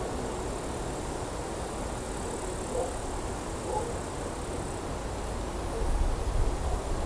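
Steady outdoor background hiss with a few faint, scattered chirp-like sounds. Wind starts to rumble on the microphone near the end.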